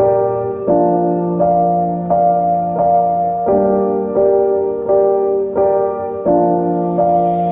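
Background music: gentle piano chords played at a slow, even pulse, changing about every three quarters of a second.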